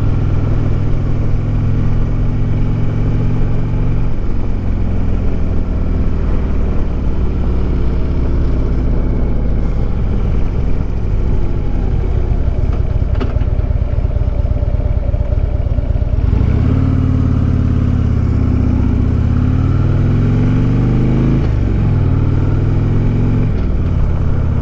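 Harley-Davidson Road King's V-twin engine heard from the saddle, running steadily at first. About two-thirds in it accelerates hard, the pitch rising through a gear, dropping at an upshift, rising again and dropping at a second upshift near the end.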